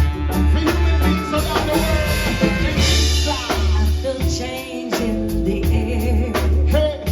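Live band music: drum kit and bass keeping a steady beat under sustained instrument lines.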